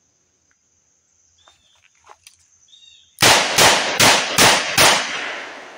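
Ruger GP100 3-inch .357 Magnum revolver fired five times in quick succession, five loud sharp reports within about a second and a half, with the echo dying away after the last. Faint handling clicks of the draw come just before the first shot.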